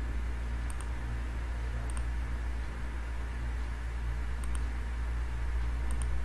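Computer mouse clicking four times, each a faint quick double tick of button press and release, over a steady low hum.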